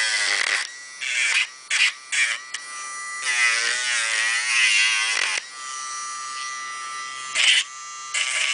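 Dremel rotary tool with a sanding drum running with a steady whine, grinding a dog's nails in several short passes. Each pass brings a louder gritty rasp with the motor's pitch dipping and wobbling as it loads against the nail; the longest pass runs about three to five seconds in.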